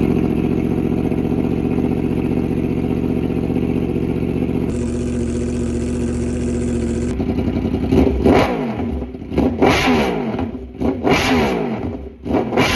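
Yamaha R1 sportbike's inline-four engine, fitted with an aftermarket exhaust, idling fast just after a cold start, then revved in a series of quick blips from about eight seconds in, each rising sharply and dropping back.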